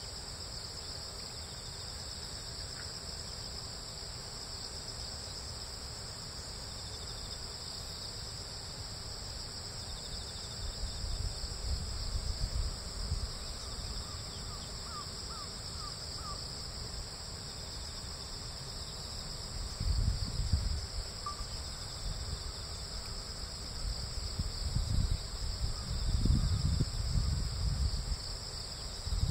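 Steady dawn chorus of crickets and other insects, a continuous high trill. Low gusts of wind rumble on the microphone from about a third of the way in, louder near the end.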